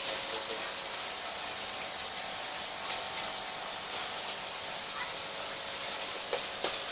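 Kyzuku mini ceiling fan running with a steady high-pitched hiss that swells faintly about once a second, with a few faint clicks near the end.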